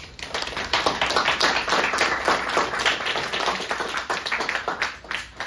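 A small audience applauding with a burst of many hands clapping that thins out to a few scattered claps near the end.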